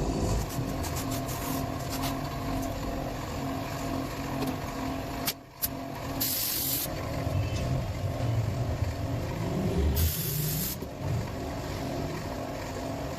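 Two short hisses of compressed air, about four seconds apart, over a steady background rumble of traffic-like noise.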